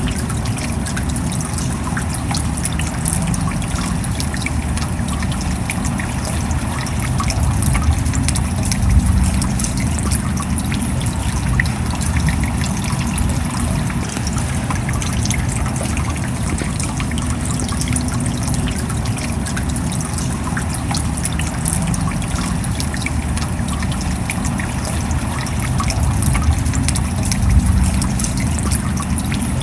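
Steady rain with water trickling and dripping, a continuous pattering of drops over a low, full rush. It swells slightly about nine seconds in and again near the end.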